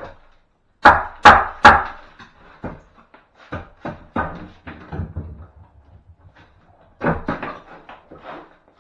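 Wooden knocks and bangs of timber being struck and pulled off a wall during strip-out: three sharp loud knocks about a second in, then scattered lighter knocks, and another quick cluster about seven seconds in.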